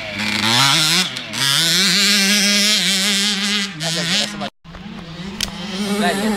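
Small two-stroke motocross bikes racing on the track, their engines revving up and down as the riders work through the gears. The sound cuts out completely for a moment about four and a half seconds in.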